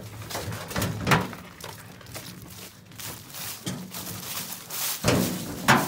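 Knocks and thuds of scrap items being handled and set down, loudest about a second in and twice near the end.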